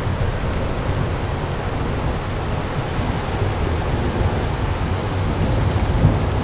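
Thunderstorm: a continuous low rumble of thunder with a steady hiss over it, swelling briefly about six seconds in.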